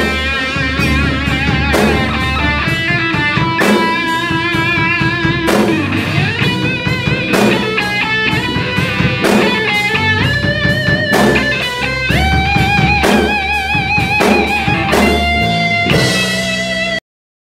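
Electric guitar playing a lead solo over a rock drum kit. The guitar plays held notes with wide vibrato and bends up in pitch. The music cuts off suddenly just before the end.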